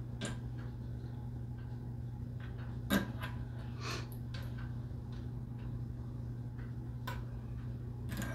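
Plastic sewing clips being picked from a pile and snapped onto the fabric edge against a wooden tabletop: scattered small clicks and taps, the sharpest about three seconds in, over a steady low hum.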